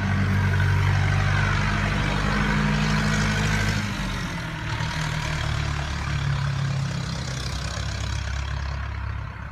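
Farm tractor's diesel engine idling with a steady low hum, a little quieter from about four seconds in.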